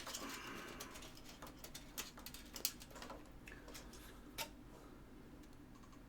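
Scattered light clicks and taps of cables and plastic parts being handled in a computer case, with a few sharper knocks through the middle, dying down near the end.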